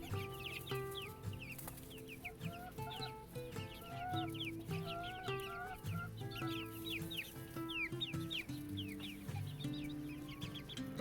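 A small flock of chickens, including serama bantams and young chicks, clucking and peeping, with many quick high peeps throughout. Soft background music with held notes plays underneath.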